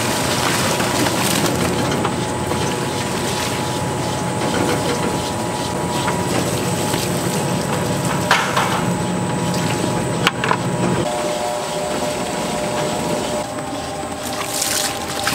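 Electric feed mixer running, its paddle churning wet eel-feed mash in a stainless-steel bowl as liquid is poured in. The motor's steady hum changes tone about two-thirds of the way through, with a couple of sharp clicks just before.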